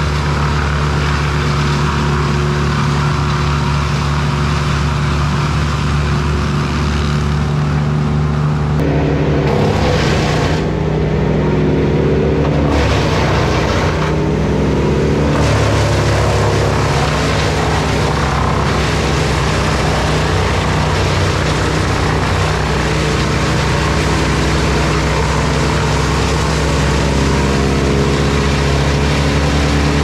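A Bandit wood chipper chipping wood together with a Kubota mini excavator's diesel engine, a loud steady engine drone. Between about 9 and 16 seconds in the engine pitch wavers and shifts as the load changes, then settles again.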